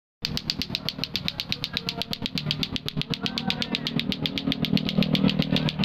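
Lato-lato clacker toy being swung continuously, its two plastic balls knocking together in a fast even clacking of about eight clacks a second. A low steady hum runs underneath.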